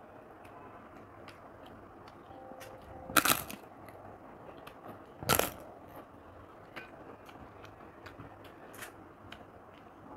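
Crisp fried papad (papadum) crunching as it is broken apart, two loud cracks about three and five seconds in, with faint small clicks of eating between.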